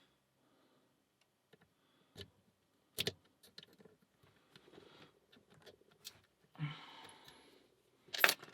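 Lock picks and a tension tool working a TSA007 lock: scattered small metallic clicks and taps, with two louder clicks about three seconds in and near the end.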